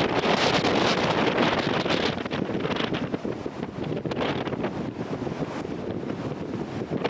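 Strong sea wind buffeting the microphone, over the rush of surf breaking on rocks. The gusting is strongest in the first two seconds and eases somewhat after that.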